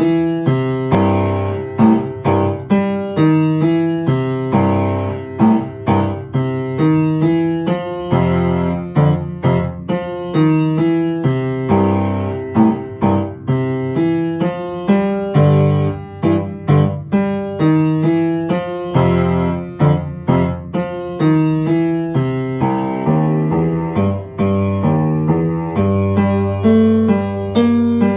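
Upright piano playing a boogie-woogie piece an octave lower than written, the notes struck at a steady, even pace with a strong low register.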